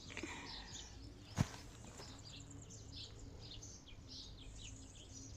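Birds chirping: many short, high chirps, repeated irregularly, with a single sharp click about a second and a half in.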